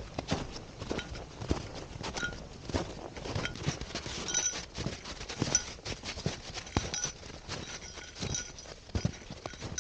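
Footsteps of a hiker and pack goats crunching and thudding over snow in an irregular walking rhythm, with faint high ringing notes now and then.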